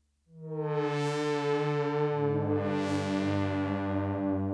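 Roland GAIA SH-01 synthesizer playing a preset patch that starts after a brief gap: a sustained chord whose tone brightens and darkens twice, with a low note joining about two seconds in.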